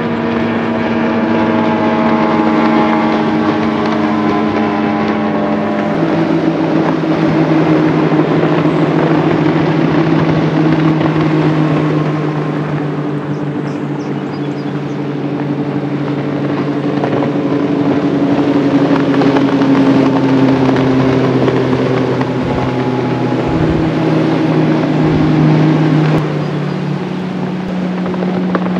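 Outboard motors of bass boats running at full throttle as the boats pass at speed: a steady engine drone whose pitch slides slowly lower as a boat goes by, with another boat's engine taking over about six seconds in.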